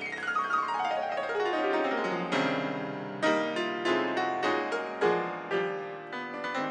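August Förster grand piano playing a jazz improvisation. It opens with a fast run sweeping down the keyboard over the first two seconds or so, then goes on with accented chords struck about once a second.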